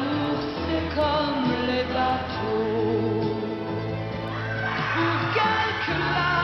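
A woman singing a French pop song into a microphone over instrumental backing, with vibrato on her held notes and sustained bass notes beneath.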